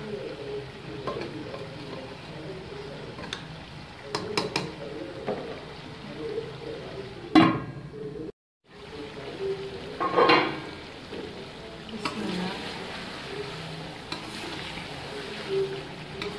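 Steel ladle stirring and scraping chicken, potatoes and tomatoes frying in an aluminium pot, with a steady sizzle as the tomatoes cook down into the masala. Two louder metal clanks come midway, about three seconds apart, as the pot's aluminium lid is handled.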